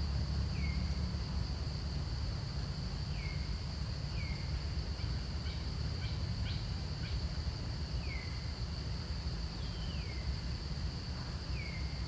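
Steady high-pitched insect drone, with a low rumble underneath. About six short chirps, each falling in pitch, come every second or few, and a few clicks sound about halfway through.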